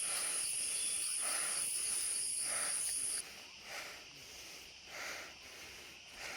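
Insects buzzing as a steady high-pitched drone, which cuts off suddenly about three seconds in, leaving faint outdoor hiss with a few soft swells.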